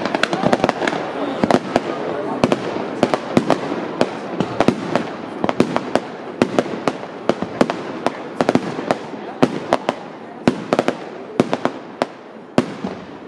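Fireworks display: aerial shells bursting in a dense, irregular run of sharp bangs and pops, several a second, over a steady rumbling wash. The bangs thin out and get quieter near the end.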